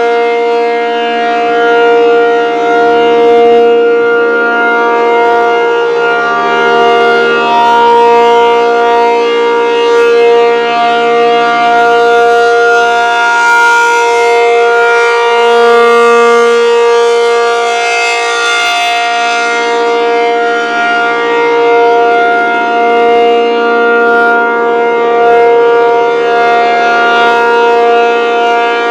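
ASC T-135 electric outdoor warning siren sounding the steady full alert signal: a loud held chord of several steady tones that swells and fades every few seconds as the rotating siren head turns.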